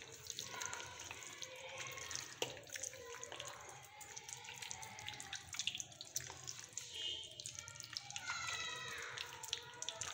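Bare hands squishing and kneading fish pieces in thick gram-flour batter in a glass bowl: an uneven run of wet, sticky squelches with small smacks and clicks.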